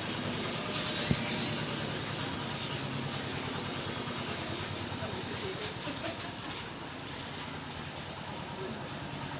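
Steady low mechanical hum, like an engine or motor running, with a short hiss and a light click about a second in.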